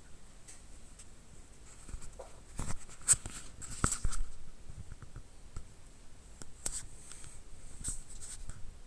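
Refrigerator making scattered light clicks and crackling creaks, densest about three to four seconds in, with a few more near the end.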